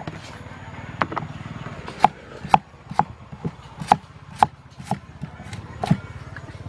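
Cleaver chopping a root on a thick wooden chopping board: about ten sharp chops, roughly two a second, in an uneven rhythm.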